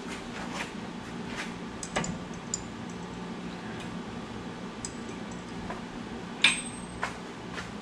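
Light metallic clicks and clinks of hand tools (socket, wrench and screwdriver) on the car's front hub and brake parts. A sharper ringing clink comes about six and a half seconds in, over a faint steady hum.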